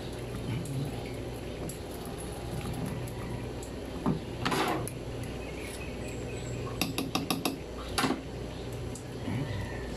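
Kitchen utensils knocking and scraping on a wooden cutting board and plate while butter is worked with a spatula and knife: one scrape midway, then a quick run of about five clicks and one more knock. A steady low hum runs underneath.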